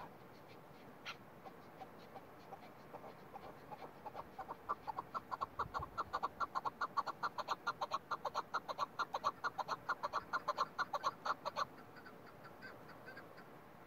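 Chukar partridge calling: a run of short clucking notes that starts sparse, speeds up to about five a second, and stops abruptly near the end, with a few faint notes after.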